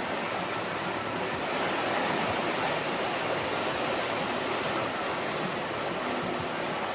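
Steady rush of water and wind as a sailing catamaran runs fast downwind through the sea.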